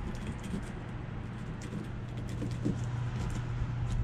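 Fillet knife slicing along a striped bass's spine, the blade giving small crackling ticks as it cuts through skin and scales, over a steady low hum.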